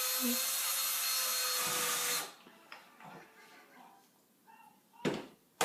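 Power drill boring a hole into drywall for a plastic wall anchor, with a steady motor whine that runs about two seconds and then stops. A short rush of noise follows near the end.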